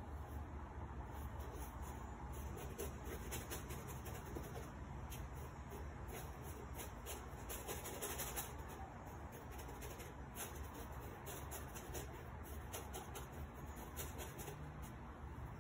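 Paintbrush stroking and dabbing thick paint across a canvas: faint, irregular scratchy strokes over a low steady hum.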